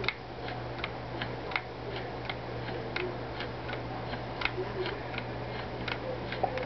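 Crude homemade clock escapement model ticking steadily, about three light clicks a second, as the little balls on its spinning arm strike the upright poles while the penny weight drives it.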